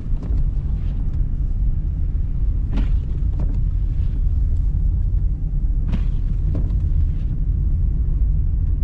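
Car driving on a snow-covered road: a steady low rumble of engine and tyres, with a few short knocks.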